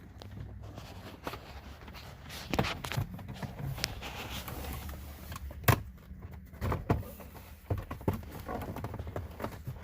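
Scattered clicks and knocks of hand work on the car's dashboard as the radio bracket and trim are screwed and fitted by hand, over a low steady hum. The sharpest knocks come about halfway through and a second later.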